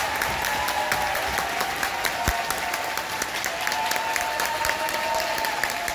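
Audience applauding, a dense steady clapping, with a few voices calling out over it.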